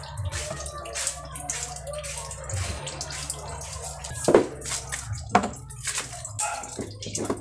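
Small clicks and rustles of hands winding nylon fishing line onto a plastic holder, with three louder knocks about four, five and seven seconds in.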